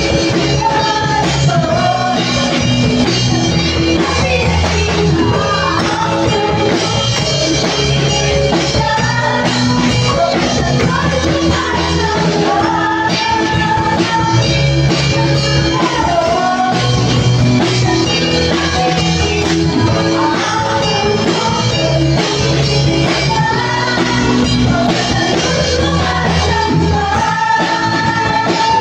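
Live worship band playing a rock-style song: a female lead singer and a second vocalist sing into microphones over electric bass, keyboard and drum kit.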